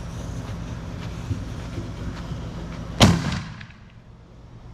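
A Killer Willow firework mortar goes off with one loud, sharp bang about three seconds in, followed by an echoing rumble that fades. Before the bang a steady low hum runs underneath.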